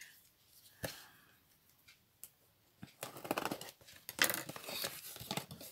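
Hands handling a cardboard box and its wrapping: a couple of light knocks, then from about three seconds in a run of scratchy rustling and clicks.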